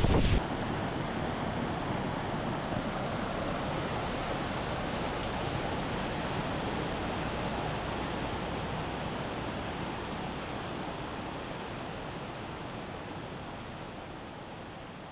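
Waterfall rushing in a steady, even roar of water, fading out gradually over the last several seconds.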